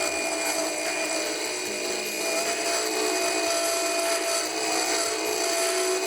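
A small power tool running steadily as it works a piece of material.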